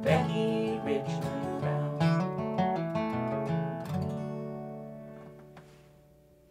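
Acoustic guitar playing the closing bars of the song: a few picked notes and strums, then a final strum about four seconds in that rings out and fades away.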